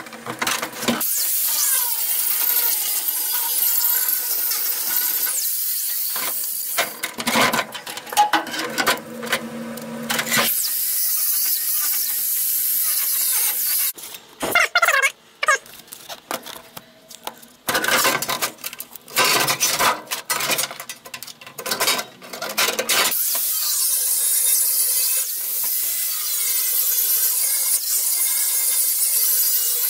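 Small corded angle grinder grinding the edge of a steel floor patch panel, in three runs of several seconds each, with knocks and clatter of the sheet metal being handled between runs.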